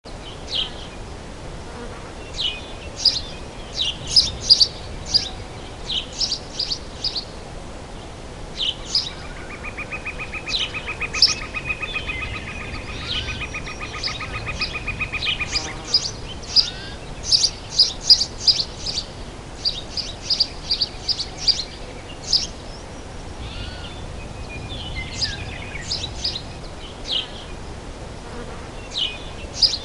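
Summer forest ambience: many birds chirping and calling in short, quick phrases. About nine seconds in, a rapid, evenly pulsed buzzing trill starts and runs for about seven seconds.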